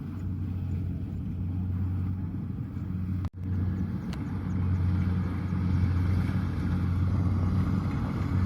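Kubota DC-70 combine harvester's diesel engine running steadily under harvesting load, a low even drone. A sudden brief dropout comes about three seconds in, after which the machine sounds louder and noisier.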